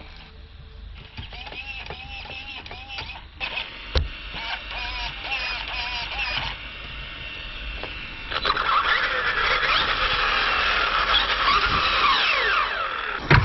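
Traxxas 2072A steering servo whining in short repeated sweeps that rise and fall as the steering is worked back and forth, the repaired servo turning again. From about eight seconds in, a louder, denser mechanical whine with pitches sliding down, from the truck's brushless motor and drivetrain spinning the lifted wheels.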